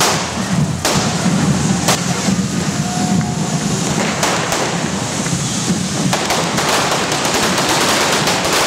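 Correfoc firework fountains hissing as they spray sparks, with sharp firecracker bangs: two single cracks in the first couple of seconds, then many more in quick succession through the second half.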